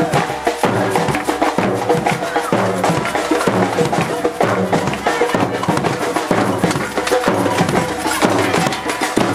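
Brazilian-style percussion ensemble playing a fast, steady rhythm on drums with sharp wood-block-like clicks over deep bass-drum beats.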